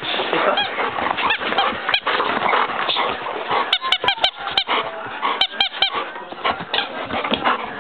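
Rubber balloons squeaking again and again as dogs play with them, the squeaks coming thick and fast, with a few sharp clicks about four and five and a half seconds in.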